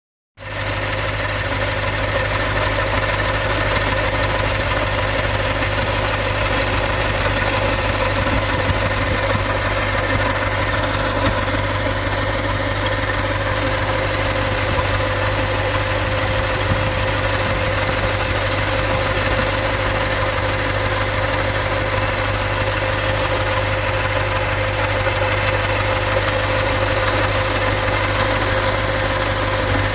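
Toyota Celsior (Lexus LS430) 3UZ-FE V8 idling steadily, with a steady mid-pitched tone running over the engine note. The owner takes this abnormal noise for a possible alternator fault.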